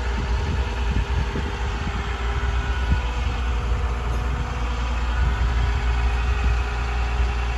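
A vehicle engine idling steadily, a constant low rumble with a faint steady hum above it.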